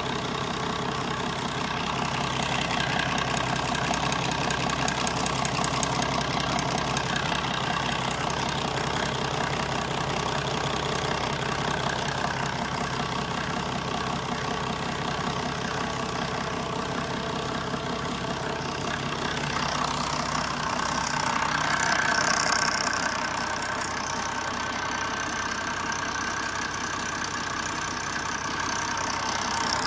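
Perkins M185C six-cylinder turbo marine diesel idling steadily, with a brief, slightly louder stretch about twenty seconds in.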